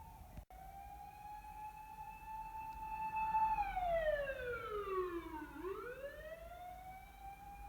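Emergency vehicle siren wailing as it passes on the street: a held tone that slides down over about two seconds and then winds back up, over low traffic rumble. The audio cuts off sharply for an instant about half a second in.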